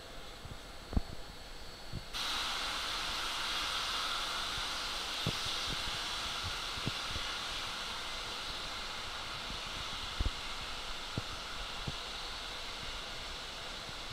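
Steam hissing loudly from a geared steam locomotive, starting suddenly about two seconds in and then venting steadily. A few faint knocks sound here and there.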